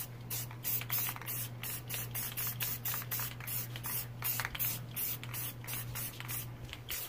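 Aerosol spray paint can sprayed in quick short spurts rather than held down, a hiss that starts and stops about three or four times a second.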